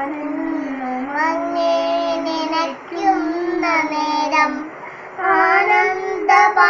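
A little girl chanting a Hindu devotional prayer (naamam) in a sing-song voice, in held phrases with short pauses between them.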